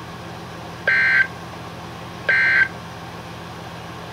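Emergency Alert System end-of-message data bursts on NOAA Weather Radio: two short, identical two-tone digital squawks about a second and a half apart, signalling the end of the alert. A steady low hum runs underneath.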